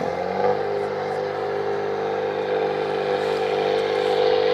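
Ford 5000 tractor engine running hard under load, its pitch rising slightly at first and then holding steady.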